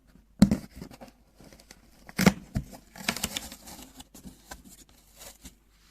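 A cardboard box incubator being handled: two sharp knocks, about half a second and just over two seconds in, then a run of light crinkling and rustling of cardboard and tape.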